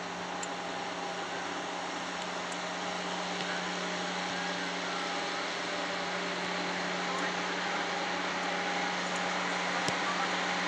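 Steady outdoor background noise: an even hiss under a constant low hum, slowly growing a little louder.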